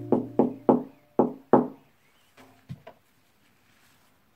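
Gloved knuckles knocking on a plasterboard wall: six quick raps in under two seconds, then a few fainter taps.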